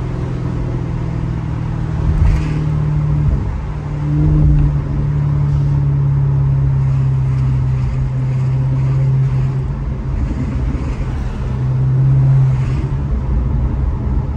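Maserati GranTurismo's V8 engine running steadily under way, a low drone that swells briefly about four seconds in and again near the end.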